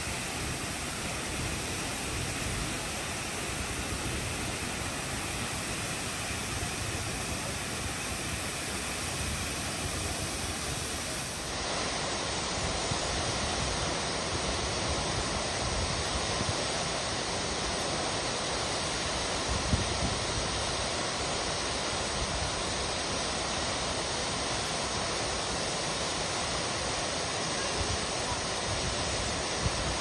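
Waterfall plunging into its pool: a steady rushing of falling water that gets a little louder and brighter about eleven seconds in.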